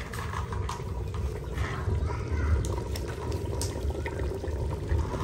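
Water pouring and splashing steadily, with a low rumble underneath.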